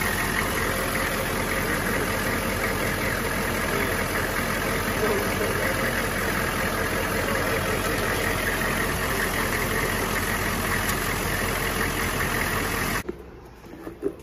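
Vehicle engine idling steadily. The sound cuts off abruptly about a second before the end.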